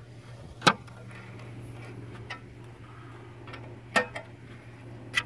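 Sharp metallic clicks from a wrench working the mounting bolts of a microwave radio outdoor unit being tightened onto a dish antenna: three loud clicks, about a second in, near four seconds and at the very end, with a few fainter ticks between.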